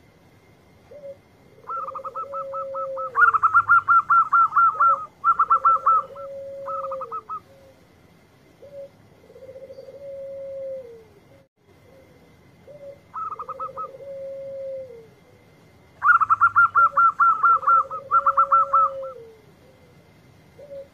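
Zebra dove (perkutut) song: two long bursts of rapid, stuttering coos, over a lower, falling coo that repeats about every two seconds. A faint steady high tone runs underneath.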